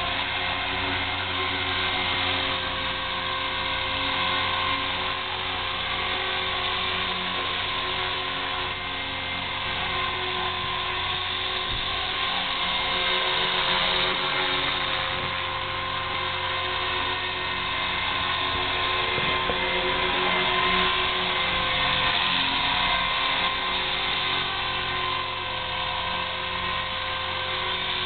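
A KDS 450 electric RC helicopter hovering low, its brushless motor, gears and spinning rotor blades giving a steady high whine that swells a little in loudness now and then.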